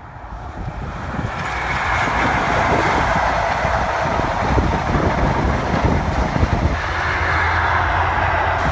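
InterCity 125 High Speed Train (Class 43 diesel power car with Mark 3 coaches) passing. It grows louder over the first two seconds as the leading power car comes by, then settles into a steady loud rush of the coaches on the rails.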